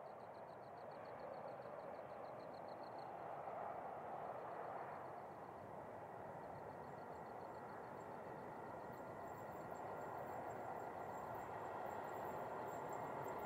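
Distant approach of a double-stacked intermodal freight train hauled by two NR class diesel-electric locomotives: a steady rumble of engines and wheels that slowly grows louder.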